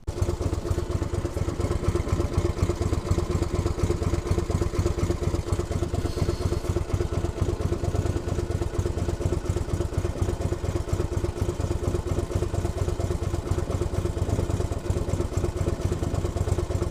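Small boat engine running steadily at an even speed, with a fast, regular firing beat. It cuts in suddenly at the start.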